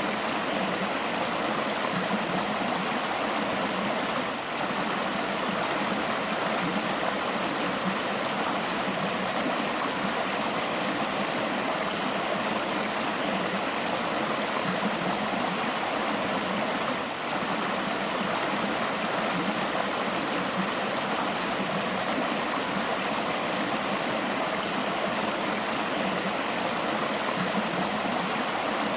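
River water flowing steadily, an even rushing hiss with no breaks.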